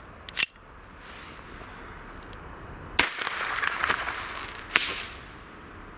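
Blank pistol firing a 15mm pyro star cartridge: a small click about half a second in, then a sharp shot about three seconds in. A hiss follows as the launched star burns, and a second sharp bang comes near the end.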